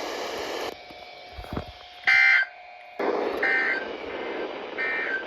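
NOAA Weather Radio EAS end-of-message SAME data bursts: three short, buzzy digital tone bursts about 1.4 seconds apart, the first the loudest, signalling the end of the Required Weekly Test. A steady radio hiss runs under the later two.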